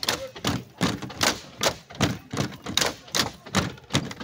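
Bamboo poles of a Mizo Cheraw (bamboo dance) being clapped together and knocked on the base bamboos in a steady rhythm, about two to three sharp clacks a second.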